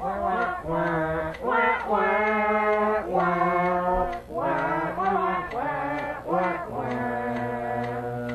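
Voices singing a wordless, chant-like melody in phrases of long held notes, with no words made out.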